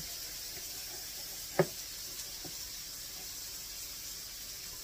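Ground-chicken patties frying in oil in a skillet: a steady, faint sizzle. A single sharp knock about a second and a half in, and a softer one shortly after.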